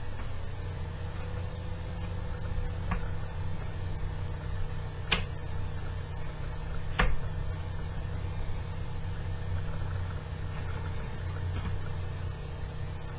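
Four-pin Master Lock pin tumbler padlock being picked with a pick and tension wrench: three short, sharp clicks about three, five and seven seconds in, the last two the loudest, over a steady low hum.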